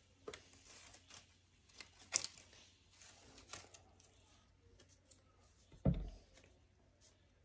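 Paper being handled: a string of short rustles and crackles, with a dull thump about six seconds in.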